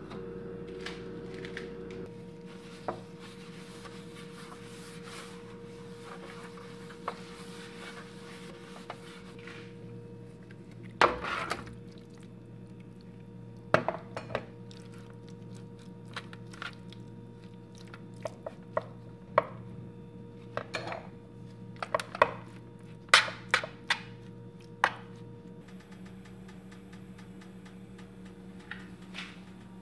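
Kitchen handling sounds: a plastic food container and a metal roasting pan clattering and knocking as marinated chicken pieces are tipped out and pushed about by gloved hands. Scattered knocks, the loudest about eleven seconds in and a run of them between about twenty and twenty-five seconds, over a steady low hum.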